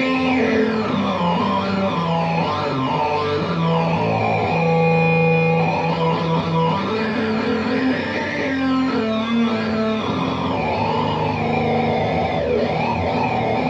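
Electric guitar played through an EarthQuaker Devices Data Corrupter, a monophonic harmonizing PLL fuzz pedal, giving synth-like fuzz notes held for a second or so each. The upper tones warble and sweep up and down in pitch.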